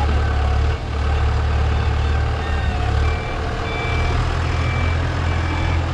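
Wolf WL200 compact wheel loader's diesel engine running steadily as it moves a wrecked derby car. From about three seconds in, a reversing alarm beeps at an even pace.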